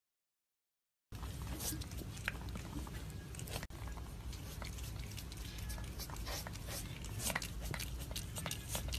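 Silence for about a second, then a cat eating from a plate: scattered small chewing and licking clicks over a low steady rumble.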